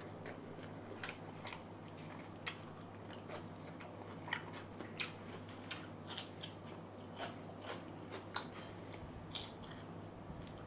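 Close-up eating sounds: a person chewing mouthfuls of fried rice and mutton curry, with faint irregular small clicks and crunches. A faint steady hum sits underneath.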